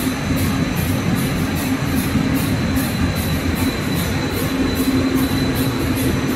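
Zhongbang 10-colour rotogravure printing machine running with its printed film web feeding over the rollers: a steady mechanical drone with a constant low hum and a fixed high whine, overlaid by an even, rapid hissing pulse about four times a second.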